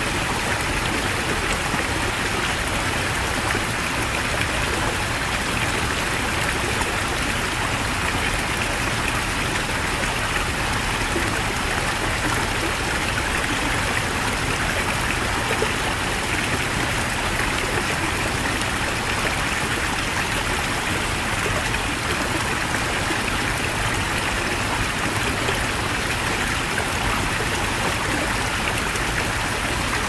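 Heavy mountain stream running: a steady, even rush of water with no breaks or changes.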